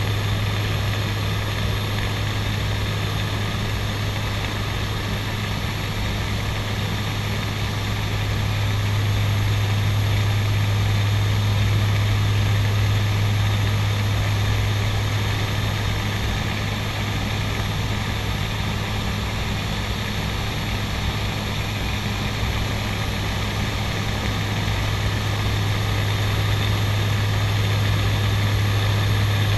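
Steady drone of a CASA NC-212-200 Aviocar's twin Garrett TPE331 turboprop engines and propellers in level flight, heard inside the cockpit: a strong low hum with a thin high whine above it.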